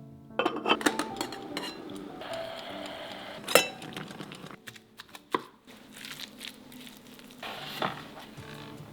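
Kitchenware being handled, clinking and clattering in a series of sharp knocks, the loudest about three and a half seconds in, over soft background music.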